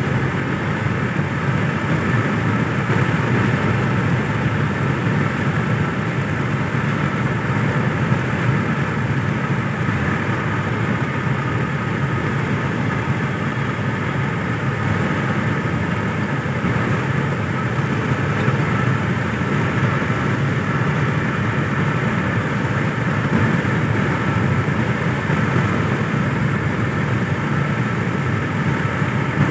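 Steady road and engine noise heard from inside the cabin of a car driving at speed on a highway.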